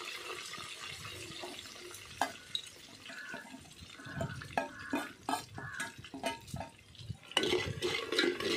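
Spice tempering sizzling in hot oil in an aluminium pot, with a steel spoon clicking repeatedly against a steel plate and the pot rim as ground roasted spice powder is scraped in. Near the end the sizzling gets louder as the spoon stirs the powder into the oil.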